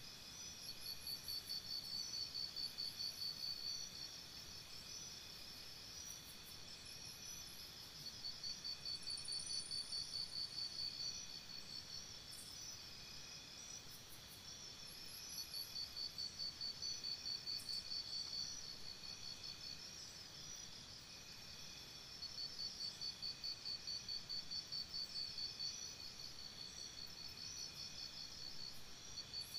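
Insects chirping in fast pulsed trills. A louder trill of about three seconds comes back every seven seconds or so over softer, steady chirping.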